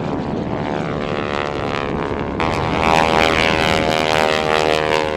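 Boeing Stearman biplane's radial engine and propeller running in a fly-past, the note sinking slowly in pitch. It gets louder and brighter about two and a half seconds in.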